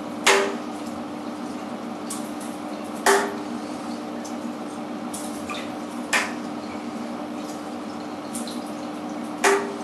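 Bath water splashing and sloshing as a balsa lure is pulled through it on a short monofilament line, with four short sharp splashing strokes about three seconds apart, one for each pull.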